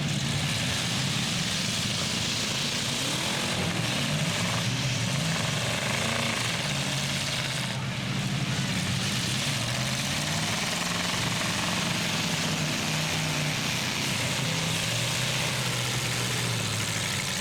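Engines of several demolition derby trucks and SUVs running together, revving up and down under steady load, over a continuous wash of noise.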